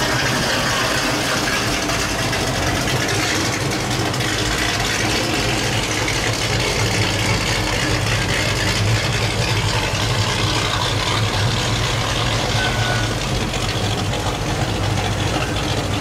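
First-generation Pontiac Firebird's V8-era engine running steadily at low speed as the car creeps along, over a steady hiss of rain and wet tyres on the boards.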